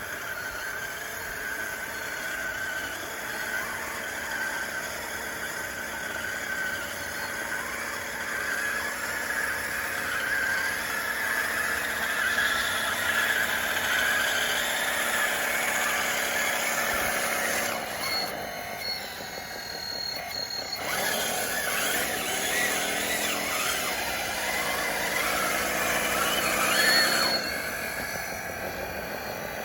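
DXR2 RC bulldozer's electric drive motors and tracks running with a steady whine and squeal. About two-thirds of the way through the sound dips, then the pitch wavers up and down as the machine changes speed.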